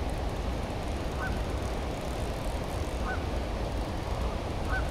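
Steady rush of water pouring over a lake spillway, with an animal's short, high call repeating about every two seconds.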